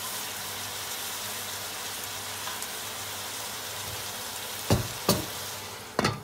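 Meat frying in a stainless steel pot under a heap of shredded cabbage, a steady sizzling hiss. Near the end, three sharp clanks as the glass lid is handled and set on the pot.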